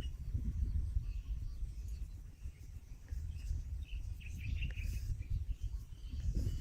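Birds chirping in short scattered calls, busiest in the middle, over a steady low rumble.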